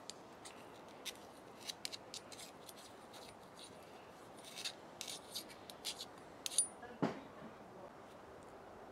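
Small screwdriver and hands working at a cast metal brake master cylinder, making a run of light metal-on-metal scrapes and ticks. The sharpest click comes about six and a half seconds in, with a duller knock just after; then only faint handling.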